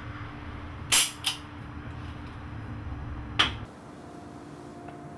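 Three sharp metallic clicks from a revolver held to the head: one about a second in, a second a moment later, and a third at about three and a half seconds. They are the hammer and trigger snapping on an empty chamber in a game of Russian roulette.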